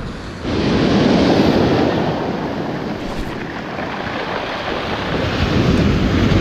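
Baltic Sea surf washing on the beach, with wind buffeting the microphone; the rushing noise comes in suddenly about half a second in and stays loud.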